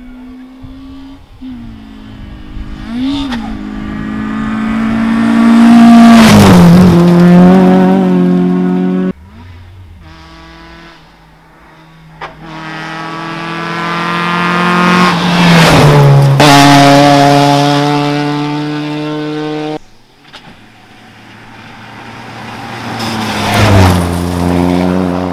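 Rally cars at full throttle on a gravel stage, one after another: each engine grows louder as the car approaches, then its pitch drops as it passes close by. Three passes, each ending abruptly.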